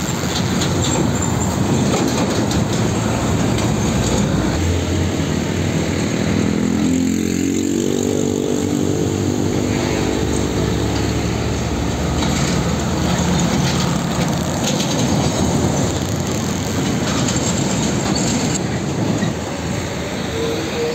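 Heavy diesel container trucks running past in street traffic, a steady engine and tyre rumble. About a third of the way in, one engine's pitch rises as the truck accelerates.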